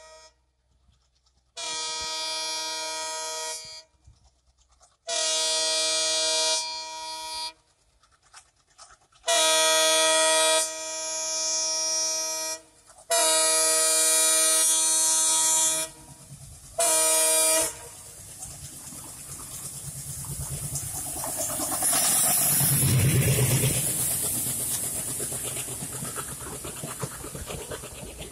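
A WDM-3D diesel locomotive's horn sounds five long blasts as a warning to workers near the track, the last one short. Then the train's rumble swells as the locomotive passes close by, and the coaches roll past.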